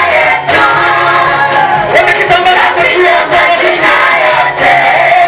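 Worship music: a group of voices singing together over an instrumental backing with a steady beat.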